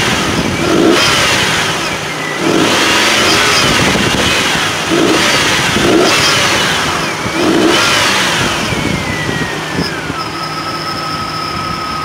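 Nissan VG33E 3.3-litre V6, running with the right bank's valve cover off, revved up and down several times, then settling back to a steady idle about nine seconds in.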